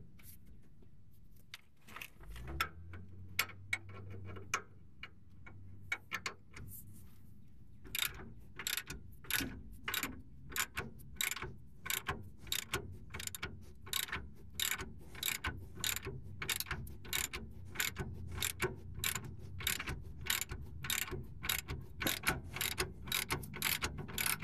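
Hand ratchet clicking as it backs off the 21 mm nut on the lower rear shock bolt of a 2009 Ram 1500. There are a few scattered clicks at first, then from about eight seconds in a steady run of about two or three clicks a second. The nut is coming off without much torque on it.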